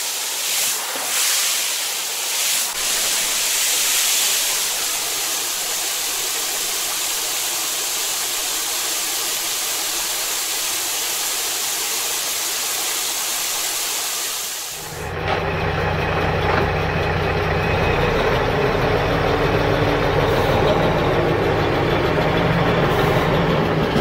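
A steady hiss, which cuts off abruptly about fifteen seconds in and gives way to the steady low running of a truck engine as a multi-axle model flatbed truck drives along the road.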